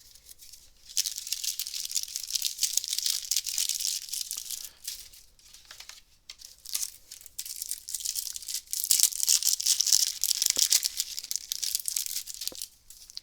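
A card-game booster pack's wrapper being torn open and crinkled in the hands, in two long spells of crackling with a short lull between.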